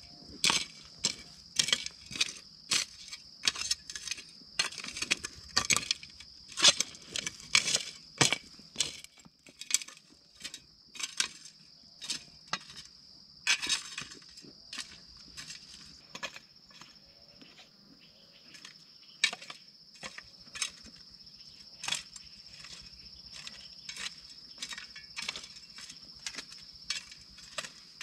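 Irregular sharp clicks and snaps, several a second at first and thinning out after about ten seconds, over a steady high-pitched insect chirring.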